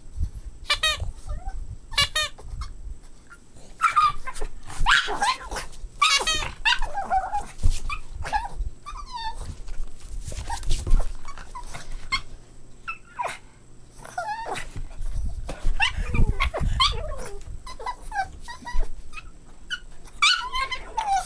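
Boston Terrier puppies yipping and whining in play: many short, high-pitched calls with wavering pitch, scattered throughout, over low bumps and rustling.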